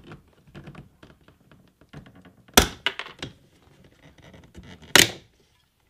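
Clips of a BMW F30's wooden door trim strip popping loose as it is pried off the door panel by hand: two sharp clicks, about two and a half seconds in and again near five seconds, amid light handling rattles.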